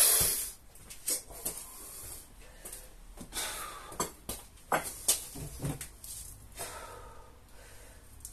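A man breathing hard and gasping in uneven bursts, out of breath just after a 12-minute burpee conditioning drill. The loudest exhalation comes right at the start.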